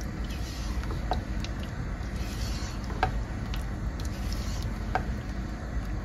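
Chicken in a yogurt-and-spice masala sizzling in a pot on high heat while it is stirred, with a few light clicks of the spoon against the pot about two seconds apart.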